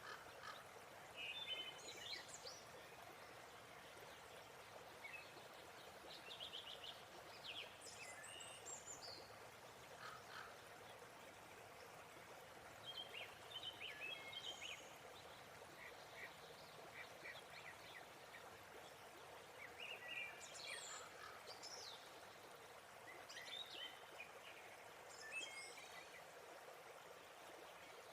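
Faint, steady rush of a waterfall with birds chirping over it in short bursts every few seconds.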